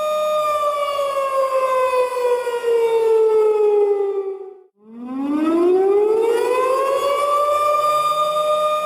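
Outdoor tornado warning siren wailing: a steady pitched tone that slides down and fades almost to nothing a little over four seconds in, then climbs back up to the same steady pitch.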